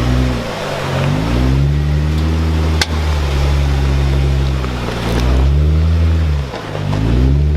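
Vehicle engine running under way, its pitch rising and falling several times as it revs up and drops back. A single sharp click comes about three seconds in.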